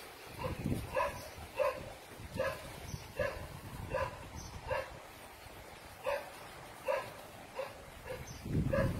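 A Doberman barking over and over in short, high barks, about one every three-quarters of a second. A low rumbling noise comes in near the end.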